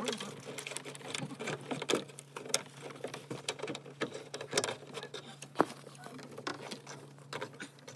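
Irregular clicks and rustling from hands working the wiring and pipework inside an open boiler, with clothing brushing the phone, over a steady low hum.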